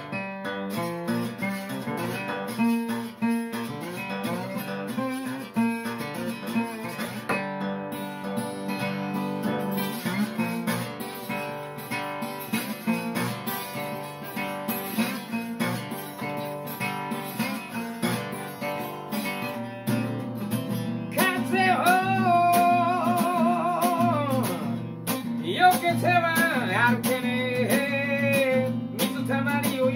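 Solo acoustic guitar played country-blues style with a bottleneck slide, plucked notes over a steady bass. About 21 seconds in, a man's singing voice with wavering vibrato comes in over the guitar.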